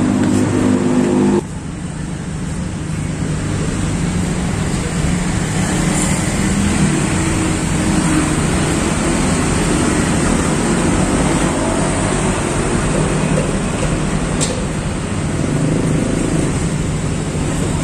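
Road traffic passing on a city street: a steady wash of engine and tyre noise. About a second and a half in, a louder engine hum cuts off abruptly.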